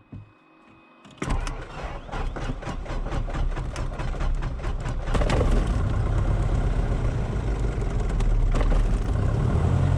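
Hot start of a Cessna 177RG Cardinal's fuel-injected four-cylinder Lycoming IO-360: the starter cranks with uneven firing for about four seconds, then the engine catches about five seconds in and settles into a steady run.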